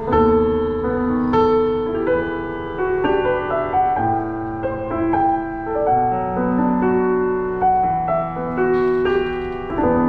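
Roland HP508 digital piano playing a slow, gentle passage in its grand-piano tone. Notes and chords are struck every half second to a second and left to ring.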